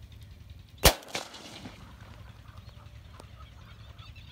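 A single loud shotgun blast about a second in, fired into a flock of white egrets, with a fainter second bang right after it and a short trailing echo.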